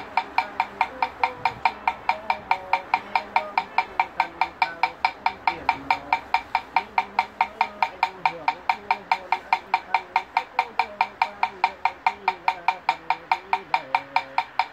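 A wooden fish (mõ) beaten in a fast, even rhythm, about four to five strokes a second, each stroke ringing briefly.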